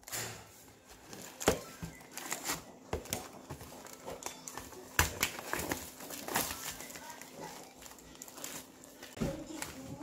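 Thin plastic film lid being peeled off a plastic ready-meal tray, with plastic packaging crinkling in the hands: irregular crackles and a few sharper clicks.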